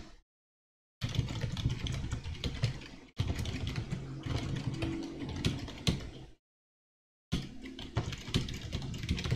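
Typing on a computer keyboard: irregular key clicks over a low steady hum, cut by two short stretches of dead silence.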